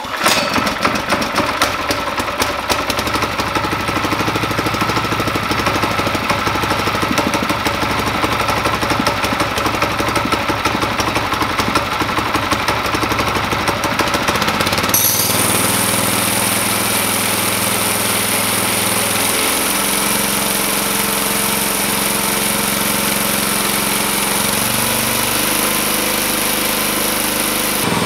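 Single-cylinder small go-kart engine on a homemade hydraulic dynamometer, pull-started and catching at once, then running with a fast, uneven pulsing. About halfway through it settles into steadier running with a high hiss over it, and its speed steps twice in the later part as the dyno's hydraulic control valve is adjusted.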